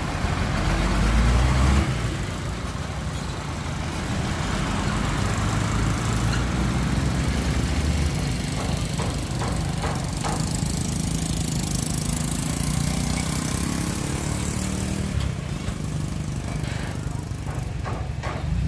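Heavy diesel engine of a dump truck or bulldozer running, its low note shifting a few times, with a louder stretch about a second in and a hiss high up through the middle.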